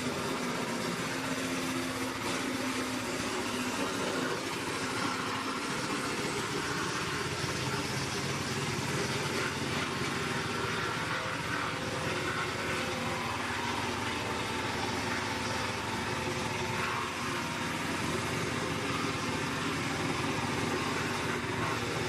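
Mobile wood chipper's engine running steadily at an even speed.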